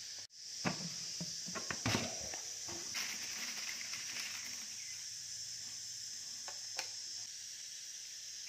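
Dry cat kibble being scooped by hand from a plastic tub and dropped into a small bowl on a kitchen scale: scattered rattling clicks, busiest early on and a couple more later. A steady high-pitched drone runs behind it.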